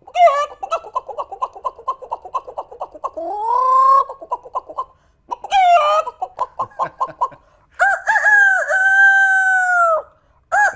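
A person imitating a chicken by voice: rapid clucking with a rising squawk, a short pause, more clucking, then a long rooster crow, with another crow starting at the very end.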